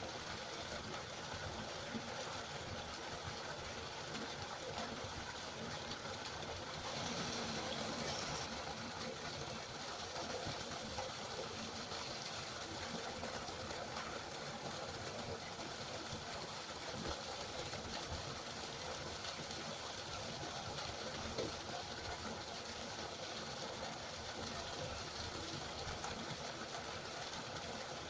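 River water flowing steadily, an even rushing sound that swells slightly about seven seconds in.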